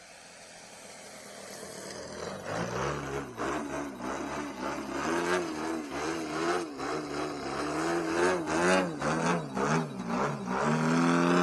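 DA-120 twin-cylinder two-stroke petrol engine of a 104-inch Extreme Flight Laser RC aerobatic plane, growing louder as the plane comes in. It then holds the plane hovering nose-up, its pitch rising and falling again and again as the throttle is worked.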